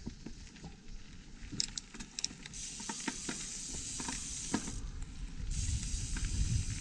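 Pivot Firebird 29 mountain bike rolling off over a rough surface: scattered clicks and rattles, then a steady hiss of tyre noise from about two and a half seconds in. Wind rumble on the chest-mounted microphone builds toward the end as speed picks up.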